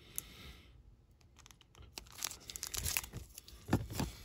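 Clear plastic sleeves crinkling and hard plastic graded-card slabs clicking against each other as they are handled. Only a few faint crackles at first, then a busy run of crinkles and clicks from about halfway in.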